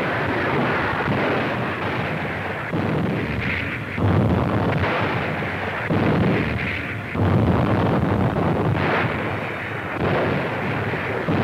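Battle din of artillery fire and explosions, a dense continuous rumble that swells into heavier blasts every second or two. It sounds dull and muffled, as on an old film soundtrack.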